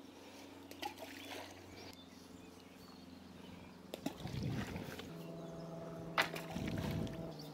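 Balls of groundbait laced with maggots landing in the pond with faint splashes, a few seconds apart, over a faint steady low hum. This is the opening baiting of the swim.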